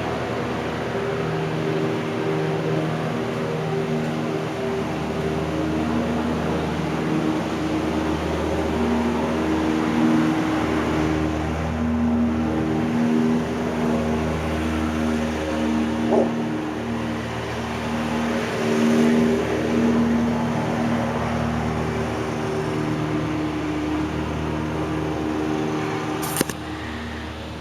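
1400 mm GEC Royal Bianca ceiling fan spinning down from full speed: a steady rush of moving air with a low, wavering hum. A small click about 16 seconds in, and a sharp click near the end, after which it goes quieter.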